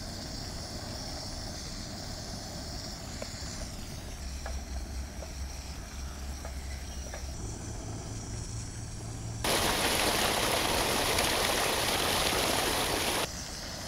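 Potatoes frying in masala in a wok, stirred with a plastic spatula, with a few light taps; about two-thirds of the way in, loud rushing water from a small cascade in a stone channel cuts in for about four seconds and then stops suddenly.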